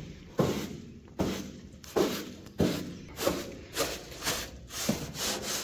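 Rhythmic scrubbing strokes against the floor of a sheet-metal box being washed out with a hose, a short thud about every two-thirds of a second, over a steady hiss of running water.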